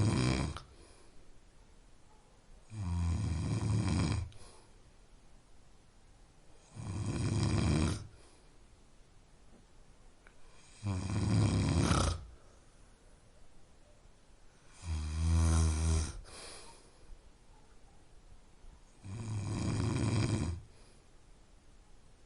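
A person snoring in a slow, regular rhythm: five low snores about four seconds apart, each lasting a little over a second, with quiet breathing between them.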